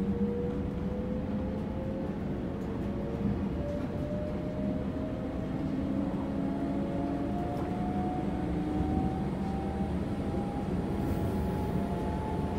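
117 series electric train's traction motors and gearing whining under power, heard from inside the motor car. The whine rises steadily in pitch as the train accelerates, over a steady rumble of wheels on rail.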